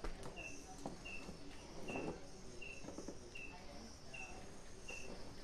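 A cricket chirping faintly and steadily: one short high chirp about every three quarters of a second, with faint rustling of movement on bedding.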